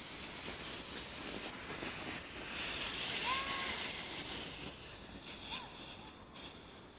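Ski-runner snow sled being towed over snow behind a bicycle: a rushing hiss of runners and tyres sliding through the snow, swelling about halfway through. Two brief high squeaks come through it.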